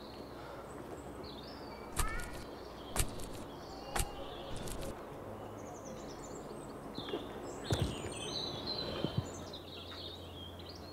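Outdoor ambience of birds chirping over steady background noise. Three sharp taps come about a second apart, two to four seconds in, and a few more near the end.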